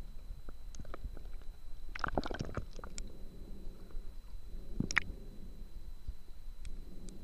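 Muffled underwater sound heard through a waterproof camera case: a steady low rumble with scattered clicks, and a dense crackling burst about two seconds in from a scuba diver's exhaled regulator bubbles, with another sharp click near the five-second mark.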